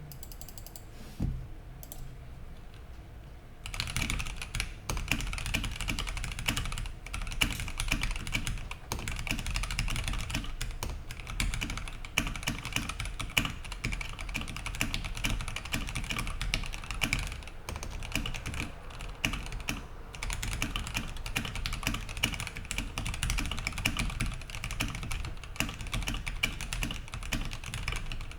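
Fast, continuous typing on a mechanical keyboard with lubed and filmed Gateron Red Ink V2 linear switches, ePBT keycaps, a polycarbonate plate and an aluminium TOFU65 case. The first few seconds hold only a single keystroke, then steady rapid typing starts.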